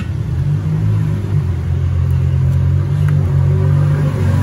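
Loud, low, steady motor rumble, holding an even pitch.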